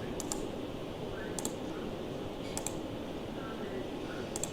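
A few sharp clicks at a computer, spread out about a second apart, over a steady low background hiss.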